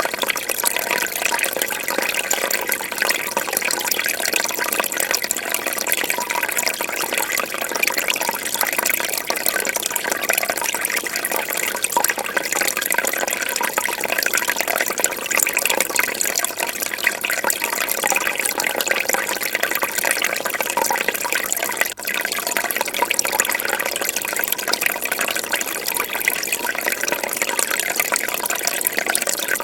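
Fish tank water bubbling and trickling steadily.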